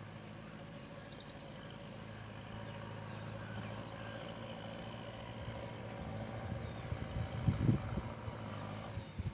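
A steady engine hum, growing slightly louder, with a few low bumps on the microphone about seven and a half seconds in.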